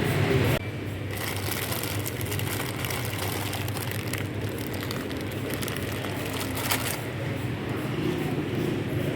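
Plastic packaging crinkling with scattered small clicks and knocks as groceries are handled, after a louder sound that cuts off abruptly about half a second in.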